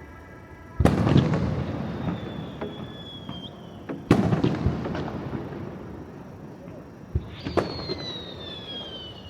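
Aerial firework shells bursting, three loud bangs about three seconds apart, each trailing off into crackle and rumble. A high whistle slides slowly down in pitch after the first and the last burst.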